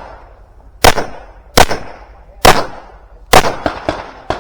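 Handgun shots in a timed IDPA course of fire: four loud, evenly paced shots about a second apart, then a run of fainter, quicker cracks near the end.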